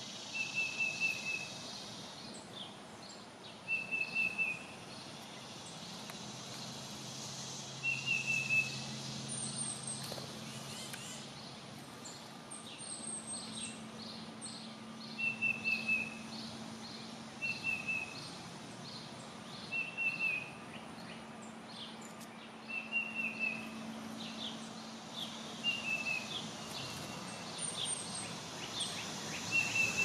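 Wild songbirds calling outdoors: one bird repeats a short, quick trill of a few notes every few seconds, with fainter, higher twitters and a rapid run of chips through the middle, over a steady background hiss.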